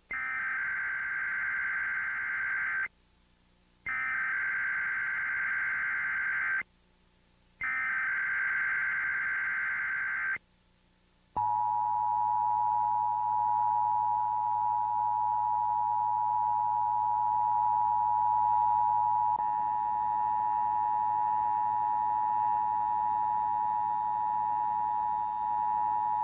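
Emergency Alert System SAME header: three bursts of digital data tones, each about three seconds long with a second's pause between, encoding a Required Monthly Test. About eleven seconds in, the steady two-tone EAS attention signal (853 and 960 Hz together) begins and holds.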